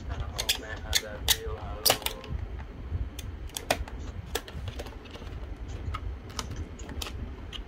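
Hard plastic blister pack of a diecast model car clicking and crackling as it is pried and cut open from the back with a utility knife: a run of irregular sharp clicks.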